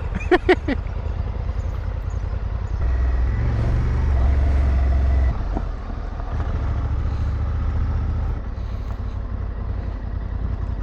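Parallel-twin adventure motorcycle engine running at low speed, its low drone swelling louder twice before easing off.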